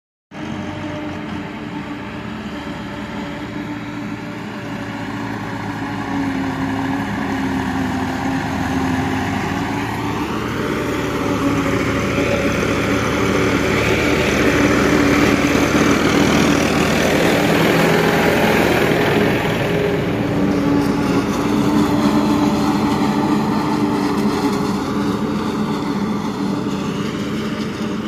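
Tractor-driven forage harvester chopping standing maize for silage and blowing the cut crop through its spout into a trailer, over the steady running of the tractor engines under load. It grows louder toward the middle as the machines draw near, then eases off.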